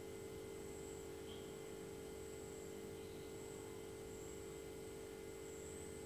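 Steady low hum with faint hiss, unchanging throughout; no distinct handling sounds stand out.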